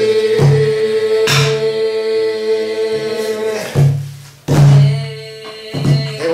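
Korean Namdo folk-song singing: one long held note for about three and a half seconds, then fresh sung phrases, over low strokes on a buk barrel drum.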